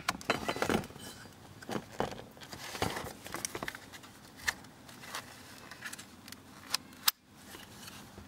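Scattered clicks, taps and rattles of a Daewoo Lanos heater and air-conditioning control panel being handled and turned over. Its plastic housing and mechanical cable-control parts knock and rattle in the hand.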